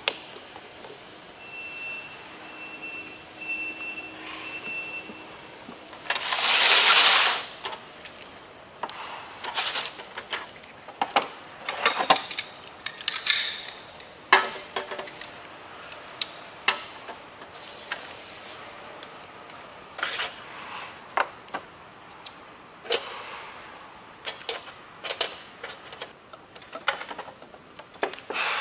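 Cans, bottles and tools being handled on a table: scattered clicks, knocks and rattles of containers being set down, opened and moved. A loud rushing hiss lasts about a second and a half, some six seconds in.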